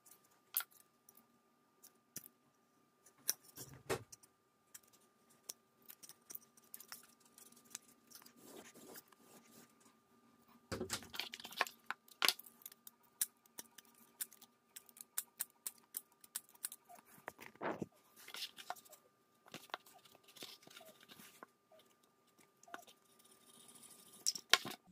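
Hands handling and shifting black foam sheet and scraps on a tiled floor: scattered light clicks, taps and rustles, with a dull thump about four seconds in and a busier stretch of rustling a little before the middle. A faint steady hum runs underneath.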